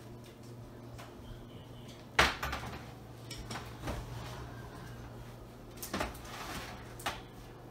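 Oven door of an electric range being opened and a metal baking sheet of cookie dough handled onto the oven rack: one sharp clunk about two seconds in, then several lighter knocks and clicks.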